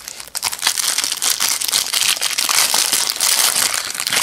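Plastic wrapper of a 60-card trading card pack crinkling loudly as it is torn open and pulled off by hand.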